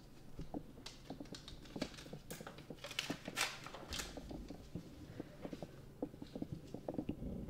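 Pen writing on paper: a run of short scratches and light taps, with a louder scraping rustle about three seconds in.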